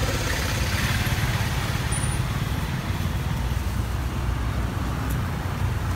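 Steady road-traffic noise: a continuous low rumble of vehicles with no distinct events.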